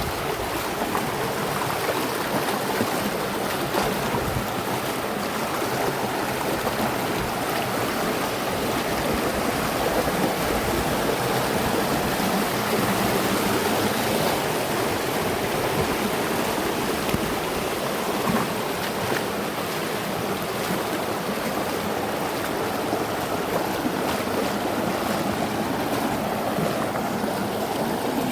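River water rushing steadily over rocks, a continuous, even rush with no breaks.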